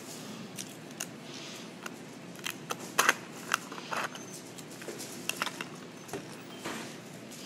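A plastic iced-coffee cup being handled: irregular clicks and taps from the lid and straw, loudest about three seconds in.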